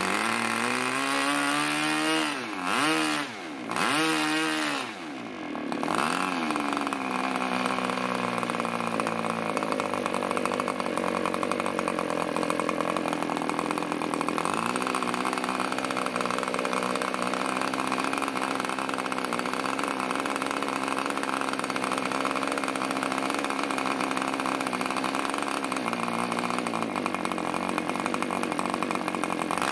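OS Max FP40 two-stroke glow engine turning an 11x5 propeller, its pitch swinging up and down several times in the first few seconds as it is revved. It then runs at a steady speed, steps up a little about halfway and dips briefly near the end.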